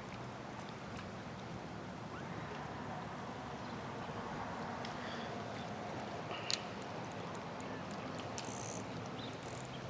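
Steady outdoor background noise with no clear single source, broken by a few light clicks about six and a half seconds in.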